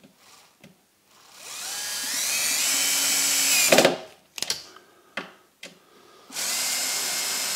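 Cordless drill-driver turning screws in a steel drawer runner: the motor winds up in a rising whine, runs steadily for about two seconds and stops with a knock, then after a few light clicks runs again near the end.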